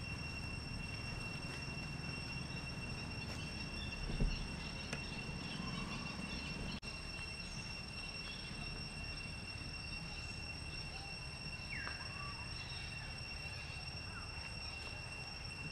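Steady, high-pitched insect drone over a low rumble, with a soft thump about four seconds in.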